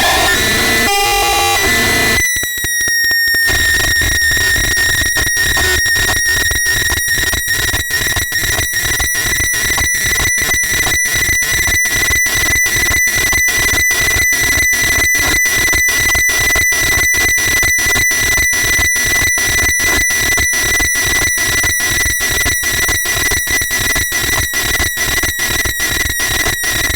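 Harsh noise music: a loud, dense wall of electronic noise with a steady high whistling tone through it. It is chopped by rapid, even stutters several times a second, with a brief stuttering dropout about three seconds in.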